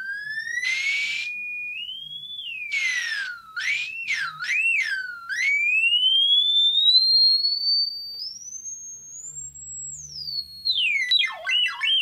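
A water-logged iPhone speaker plays a single pure tone from a water-eject app, swept by hand in pitch to drive the water out. The tone glides up and swings up and down, climbs to a high whistle, then drops and warbles quickly near the end. There are two short bursts of hiss in the first few seconds.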